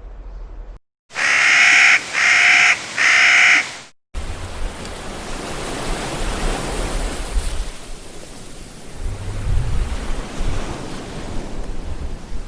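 Three loud, harsh calls of a Clark's nutcracker, each just under a second long, starting about a second in. After a brief silence, sea waves wash on a shore as a steady surf hiss with rising and falling rumbles.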